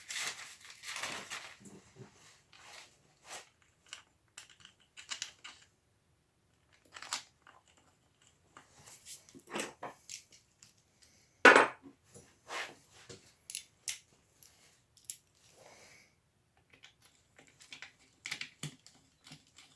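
Scattered small metal clicks and clinks of bolts being handled and set into the holes of a motorcycle's primary cover, with one sharper, louder clink about halfway through.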